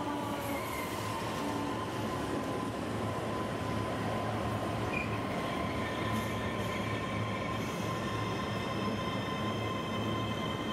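Ivolga electric multiple unit running past along the platform: a steady rumble of wheels on rail with a thin, steady high whine, and further higher tones joining in during the second half.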